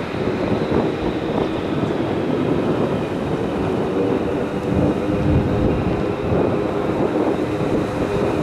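F-35B's Pratt & Whitney F135 jet engine running as the fighter taxis after a vertical landing: a steady rumble with a thin, high whine.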